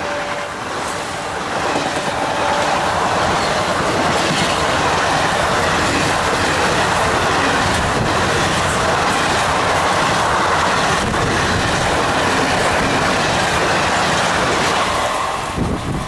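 Passenger coaches of an express train passing close at high speed: a steady, loud rush of steel wheels on rail with clickety-clack over the rail joints, falling away near the end as the last coach goes by. The end of the electric locomotive's horn fades out at the very start.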